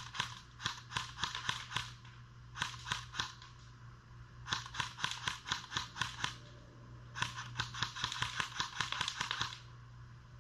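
Colt M4A1 CQBR electric airsoft gun firing strings of quick shots, each a sharp click: a string at the start, a short one about two and a half seconds in, and longer, denser strings about four and a half and seven seconds in.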